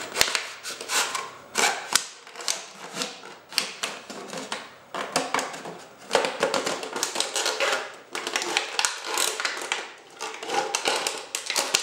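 Plastic water bottle crackling and crinkling as the blade of an Aitor Oso Negro knife slices along its thin wall. The sound comes in irregular bursts of sharp clicks with short pauses.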